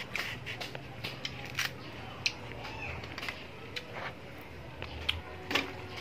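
A small kitchen knife cutting slices from a firm green mango: an irregular string of short, crisp cuts and scrapes.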